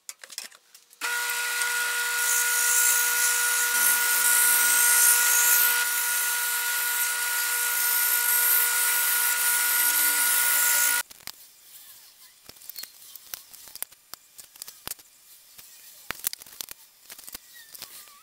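Delta wood lathe running with a steady motor whine and a strong hiss as a wooden strip is held against the spinning work, stopping abruptly about eleven seconds in. After that, light scattered taps and clicks of a tape measure and pencil on a wooden workbench.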